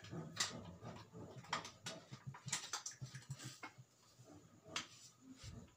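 Faint handling noise: scattered small clicks and rustles at low level.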